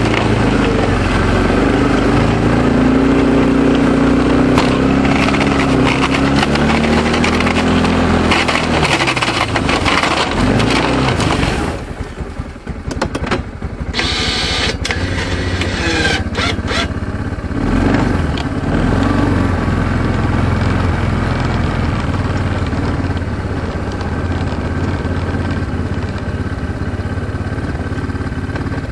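Kawasaki Prairie 360 ATV's single-cylinder four-stroke engine running while plowing snow, its pitch rising and falling for the first ten seconds and dropping back about twelve seconds in, then running more steadily. A brief hiss comes about fourteen seconds in.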